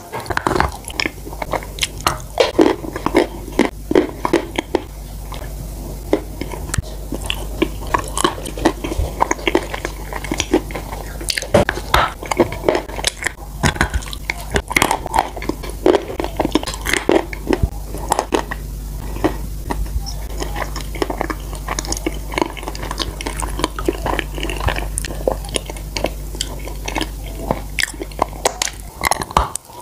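Close-miked biting and chewing of soft sauce-dipped cookies: wet mouth sounds with many irregular sharp clicks and smacks.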